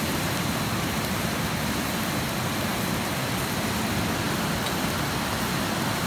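Steady rushing of water with a few faint clicks.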